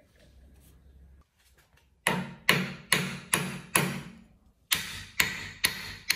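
Hammer blows on a restored bench vise that has a wooden block clamped in its jaws. About two seconds in come five quick strikes, a short pause, then four more, each with a short metallic ring.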